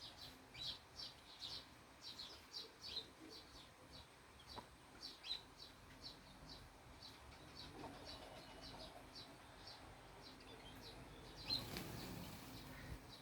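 Small birds chirping faintly: a steady series of short, high chirps, a few a second, growing sparser in the second half. A brief louder noise comes near the end.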